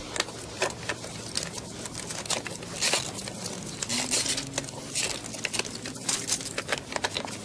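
Scattered light clicks and rattles of a film camera being handled as the film is taken out of it, over steady background noise.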